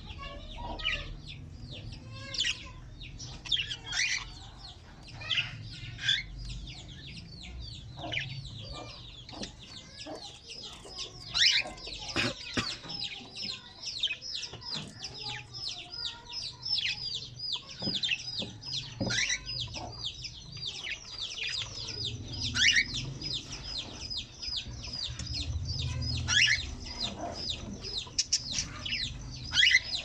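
Small parrots in a mixed aviary of cockatiels, budgerigars and lovebirds chattering and calling: a fast run of short high chirps, each dropping in pitch, about three or four a second, with louder sharp calls now and then.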